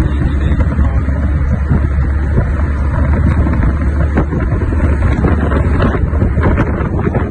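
Wind buffeting a phone's microphone: a loud, steady low rumble with a hissy noise above it.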